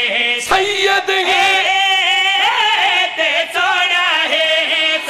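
Several men singing a Punjabi devotional qaseeda together into microphones, a sustained, ornamented melody carried on the sound system. A brief thump about half a second in.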